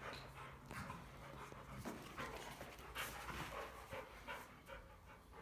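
Rottweilers panting as they jostle at play, with a few sharp clicks.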